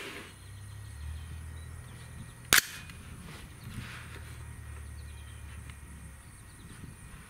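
A single rifle shot from an AR-style rifle chambered in .300 Blackout, firing a subsonic handload of 178-grain ELD-X bullets over Accurate 1680 powder. One sharp crack comes about two and a half seconds in.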